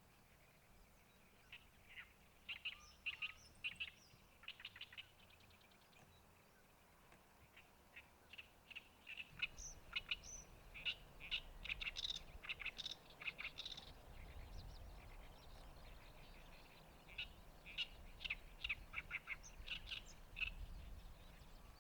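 A songbird singing: rapid, chattering runs of short harsh chirps in three long phrases, with short pauses between them.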